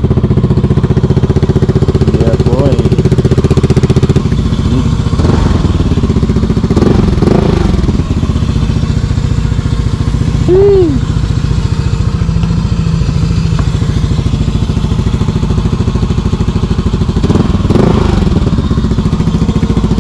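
Motorcycle running through a loud aftermarket muffler with a full, deep exhaust note, much louder than a stock muffler. It runs a little louder for the first four seconds, then settles to a steady run.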